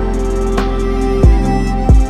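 Background music: sustained melodic tones over a steady deep drum beat, with a kick about every two-thirds of a second.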